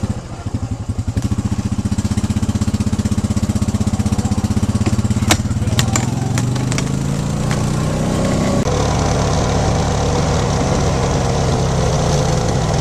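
A small petrol engine running close by with a fast, even pulse. Its pitch climbs about six seconds in, then holds steady. A sharp click comes about five seconds in.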